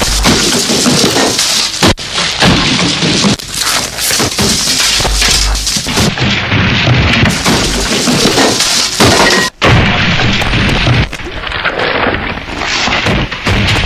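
Harsh noise music made with amplified objects on piezo contact microphones, a no-input mixing board and tape feedback: a loud, dense wall of noise full of clattering impacts. It drops out suddenly for a split second twice, about two seconds in and again near the ten-second mark.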